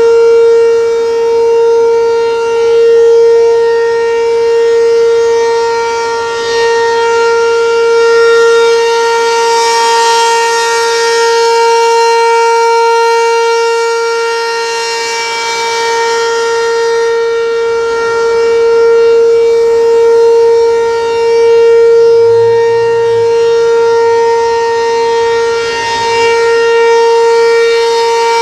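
ACA P-15 electromechanical tornado siren sounding its steady Alert tone: one held pitch that swells and fades about every six seconds as the siren rotates.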